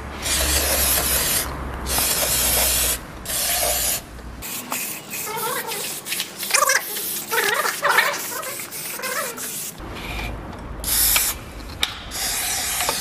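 Aerosol spray can fired through a straw nozzle into the cylinder bores of an engine block, in repeated hissing bursts of about a second each. There is a run of bursts in the first four seconds and two more near the end. The spray is cleaning the cylinder walls before the pistons come out.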